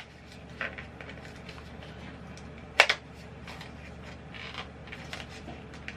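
Makeup packaging being pried and worked at by hand as it resists opening: light rustling and scattered small clicks, with one sharp click near the middle.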